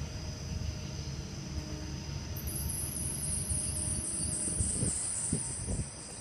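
Night insects chirping in a fast, pulsing high trill that starts about two seconds in, over a steady low rumble. A few bumps sound near the end.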